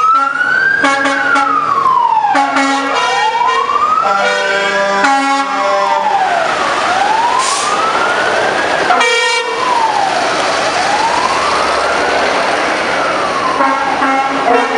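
Fire engine siren wailing, its pitch rising and falling slowly, about once every four seconds. Several short truck horn blasts sound over it, about four in all, and the engines of passing trucks run underneath.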